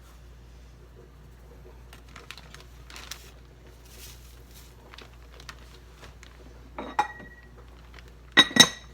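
Kitchen utensil sounds while self-rising cornmeal is added to okra: faint scraping and rustling, a light clink about seven seconds in, then two sharp ringing clinks of a utensil against a dish near the end.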